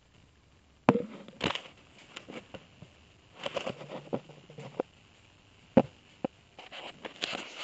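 Handling noise around a small glass fish bowl: irregular sharp clicks and taps with short bursts of rustling, the sharpest knocks about a second in and just before six seconds.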